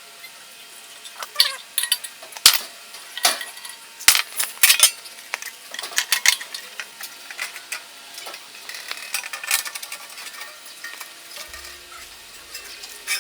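Metal parts and hand tools clinking and knocking against each other as they are handled, a string of irregular sharp clicks, busiest in the first half and thinning toward the end.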